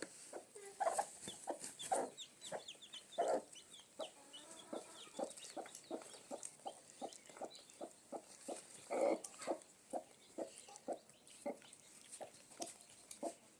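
Chickens clucking over and over in short calls, about two a second for much of the time, with a few louder clucks among them.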